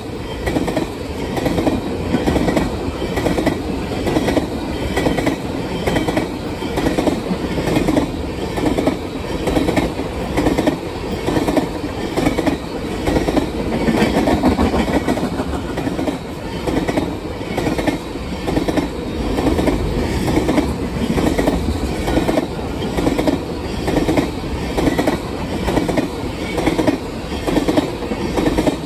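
Empty oil tank cars of a freight train rolling past, wheels clicking rhythmically over rail joints above a steady rumble.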